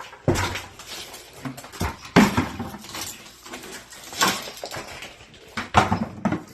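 Sledgehammer blows smashing a concrete sink: about four heavy impacts roughly two seconds apart, each followed by a clatter of broken concrete pieces.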